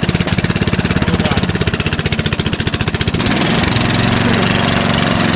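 Riding-mower engine on a mud mower, running under load with a fast, even chugging pulse. About three seconds in it picks up speed and turns smoother and a little louder.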